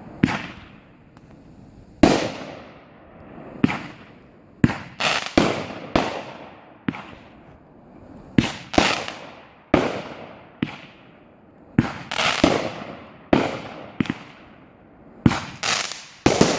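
Fireworks going off, a string of about twenty sharp bangs at irregular spacing, some in quick clusters, each trailing off in a fading echo.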